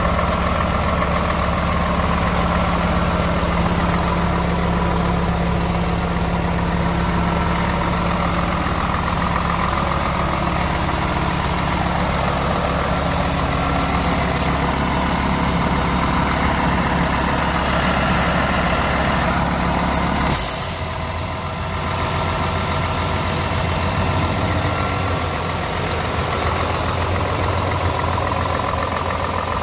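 Scania R450's 13-litre inline-six diesel idling steadily. About two-thirds of the way through a short hiss of compressed air is let off, and the engine's low tone shifts slightly as it keeps running.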